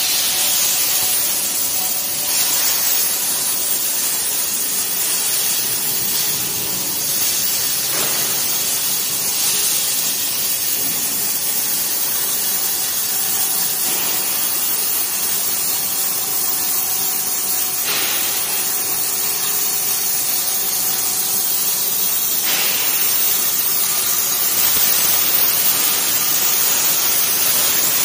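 Gantry CNC cutting machine's torch cutting through steel plate: a loud, steady hiss.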